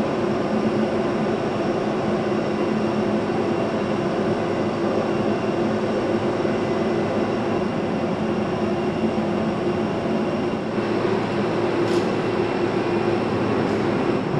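Jet aircraft engines running on an airport apron: a steady rumble with a constant high whine.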